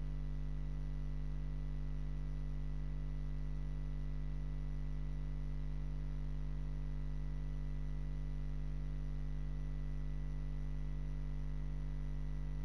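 Steady electrical mains hum, a low drone with overtones, unchanging throughout and with no voice or other sound over it.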